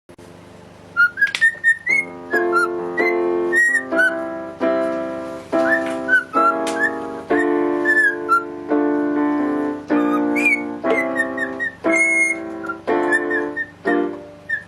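Pet birds whistling and chirping along to piano music, with whistled notes that glide up and down over the chords and short high chirps above them.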